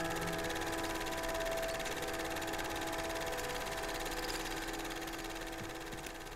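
A held chord fades out over a steady mechanical whir with fast, even ticking, the sound of a film projector running.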